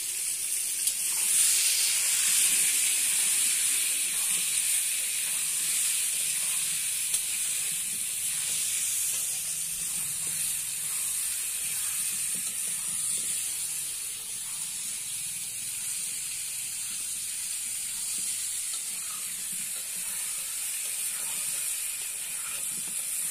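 Potato pieces sizzling in hot oil in a kadai: a steady hiss that swells about a second and a half in, with occasional scrapes of a metal spatula stirring them.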